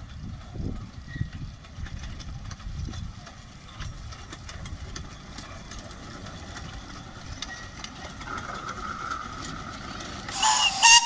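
Severn Lamb miniature steam locomotive hauling its coaches toward and past the listener, running with a low rumble and irregular knocks, a little louder as it nears. A short, loud burst near the end.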